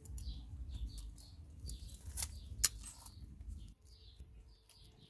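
A knife working at a green banana bunch's stalk to free a hand of bananas, giving a few sharp clicks, the loudest about halfway through, over low handling rumble that stops near the end. Small birds chirp repeatedly in the background.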